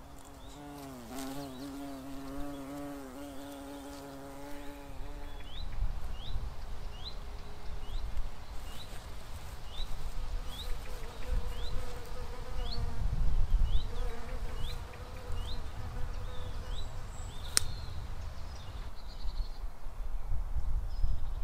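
A flying insect buzzing close by, its pitch wavering, for the first five seconds or so; a second, higher buzz comes and goes later on. Meanwhile a bird repeats a short, high, rising chirp about twice a second, over a low rumble of wind on the microphone.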